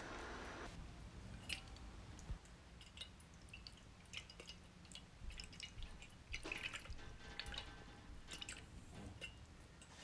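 Fingers swishing freshly cut radish microgreens in a glass dish of cool water: faint small splashes and drips, busiest about six and a half seconds in.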